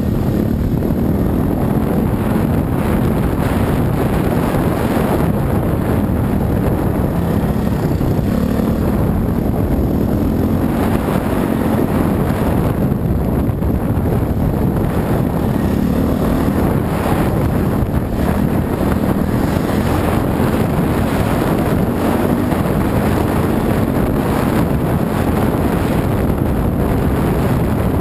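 Dirt bike engine running under constant load along a trail, its pitch rising and falling as the throttle opens and closes, with wind buffeting the on-bike microphone.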